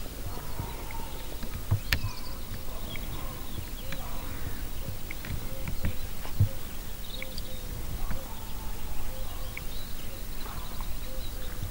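Wind rumbling on the microphone in an open field, with a few soft knocks and faint short high chirps.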